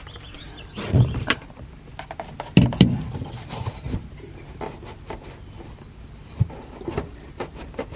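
Scattered knocks and clunks of hand work on a car's rear speaker deck as a speaker is set in place, with two heavier thumps, about a second in and near three seconds.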